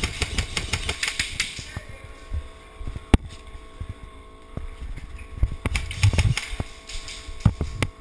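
Sharp cracks and rapid runs of clicks from airsoft guns firing, mixed with knocks and rustle from the player moving with a head-mounted camera, over a steady faint hum. A dense run of clicks with hiss comes in the first second and a half, a single sharp crack about three seconds in, and another cluster of knocks around six seconds.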